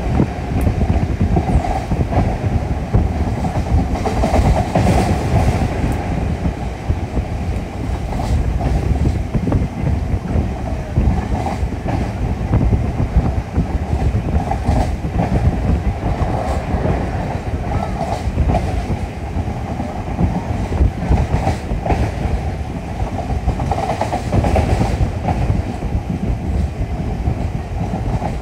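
Passenger train carriage running along the track at speed, heard through an open window: a steady, loud rumble of wheels on rails with scattered light clicks and rattles.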